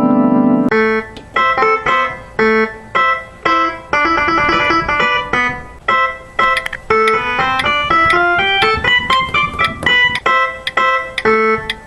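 Electronic keyboard music: a held chord, then a quick, bouncy melody of short detached notes.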